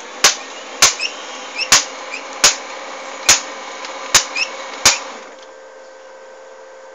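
Brother 8060 laser multifunction printer running with a sharp knock repeating about once every 0.8 seconds, seven times, the abnormal noise it is making. After about five seconds the knocking stops and a quieter steady hum carries on.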